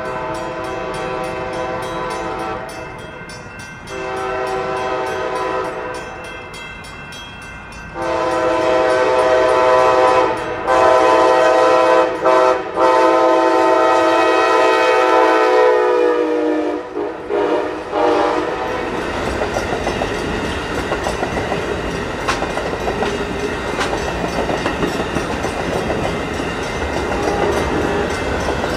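Amtrak passenger train sounding its air horn in blasts, two shorter ones and then a long one that drops in pitch as the locomotive passes. The train then rolls by with a steady rumble and clatter of wheels on rail.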